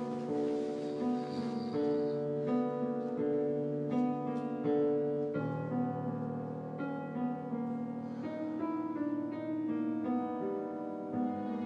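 Background piano music: a melody of held notes over sustained chords.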